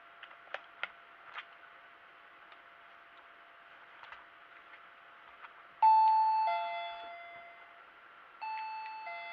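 Wireless doorbell ringer playing a two-note ding-dong chime, a higher note then a lower one, each ringing on and fading. It comes about six seconds in and again, more quietly, near the end. A few light clicks come in the first second and a half.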